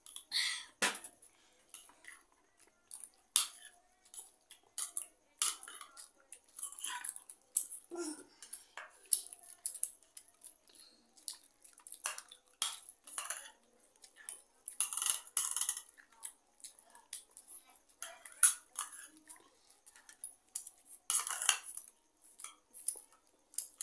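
Steel spoon and fork scraping and clinking against plastic bowls as noodles are scooped and eaten, in irregular quick clicks and scrapes.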